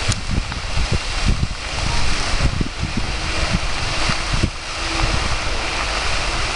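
Large marsh fire burning: a steady rushing noise with frequent short low pops and crackles. Wind is rumbling on the microphone.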